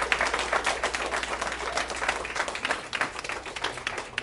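Audience applauding, many hands clapping at once, the clapping thinning and growing quieter toward the end.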